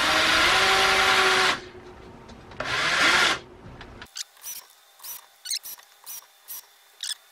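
Black & Decker 20V cordless drill driving small screws into a plastic vent hood on thin wood: a run of the motor about a second and a half long, then a shorter second run a second later. After that come a string of light clicks and taps.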